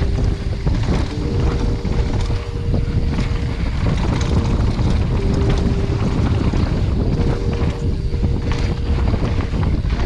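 Wind buffeting an action camera's microphone and tyres rumbling over a dirt trail as a Radon Swoop mountain bike descends at speed, with scattered clicks and rattles from the bike. A faint steady buzzing tone comes and goes.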